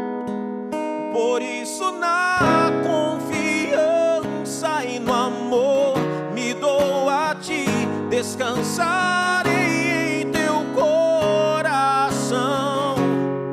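A slow worship song: a singer holds long, wavering vibrato notes over acoustic guitar strumming.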